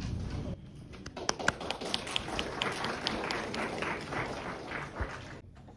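Audience applauding, many hands clapping together, for about five seconds; it stops suddenly near the end.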